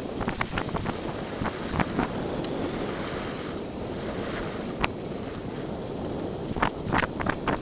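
Wind rushing over the camera microphone of a skier gliding downhill, with scattered sharp clicks and scrapes, more of them near the end.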